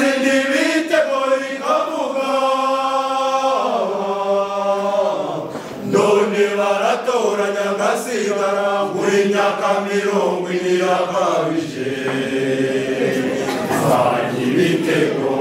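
Mixed choir of women and men singing a song in Kinyarwanda in several parts together, holding long notes and moving between chords.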